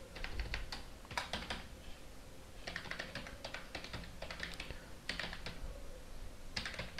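Computer keyboard typing: several quick runs of keystrokes separated by short pauses, fairly quiet.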